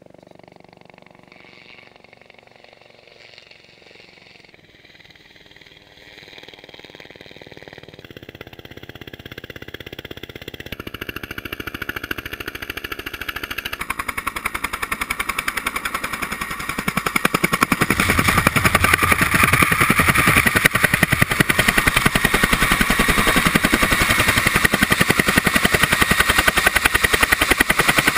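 Helicopter approaching and landing close by: rapid rotor-blade thumping that starts faint and grows steadily louder, at its loudest over the last ten seconds or so as it sets down.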